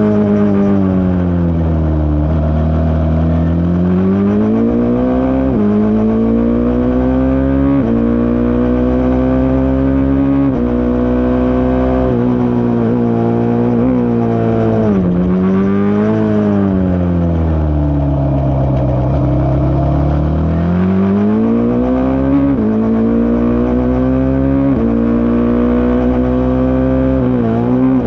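Single-seater racing car engine at full racing load. It revs up in steps, its pitch dropping sharply at each upshift, then slows twice with falling revs before accelerating through the gears again.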